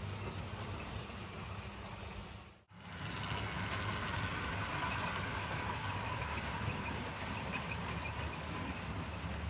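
Model railway locomotive and coaches running on track: a steady motor hum and wheel rumble, broken by a sudden cut about three seconds in, after which a faint steady whine joins the rumble.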